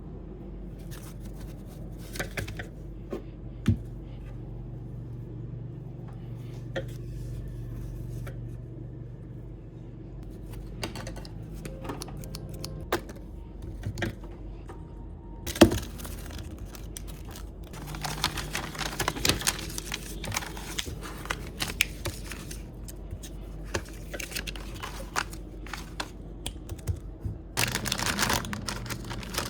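Handmade squishy being crafted: craft materials crinkling and tearing, with scattered sharp clicks and taps and a few longer bouts of crinkling, the loudest near the end.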